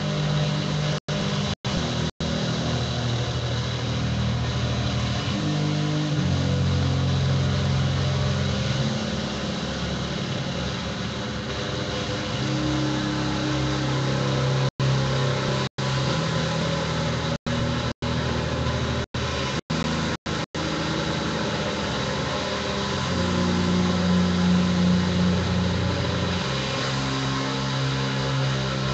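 Drone guitar: long held low notes that shift pitch every few seconds over a steady hiss. The sound cuts out completely for a split second several times, near the start and again around the middle.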